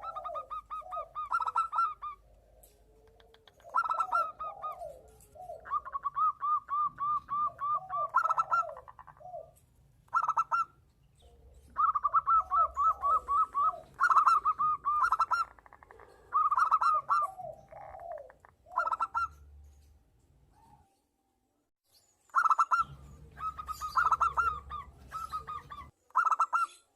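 Zebra doves (perkutut) calling back and forth in phrases of rapid, rippling coos, a higher trilled voice and a lower curving one overlapping. There is a pause of about two seconds a few seconds before the end, then the calling resumes.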